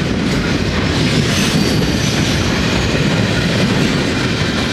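Freight train cars rolling past close by: steel wheels on rail give a steady, loud rumble.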